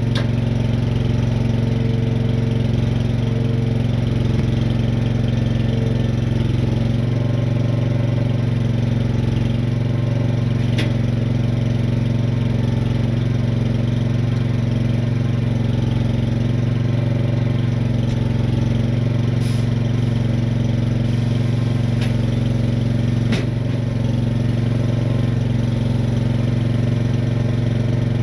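A truck engine running steadily at an even speed, with a few faint clicks over the top.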